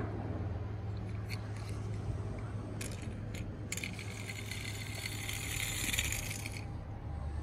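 Toy cars clicking against each other a few times, then rattling together for about three seconds, over a low steady hum.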